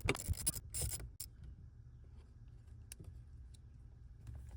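Socket ratchet clicking as a 7 mm bolt is backed out of the HVAC blend door actuator, stopping about a second in. A faint low hum follows, with a single click near three seconds.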